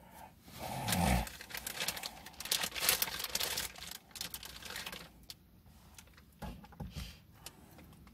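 Paper food wrapper crinkling and rustling as it is handled. The crackling is dense for about five seconds, with a louder burst about a second in, then thins out to scattered clicks.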